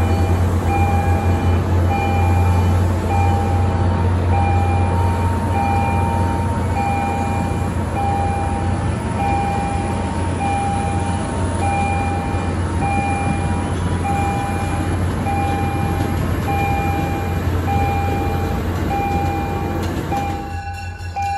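MBTA commuter train pulling away from the station: a steady deep rumble of the diesel locomotive and rolling coaches. An electronic warning beep repeats about once a second throughout. The sound changes abruptly about a second before the end.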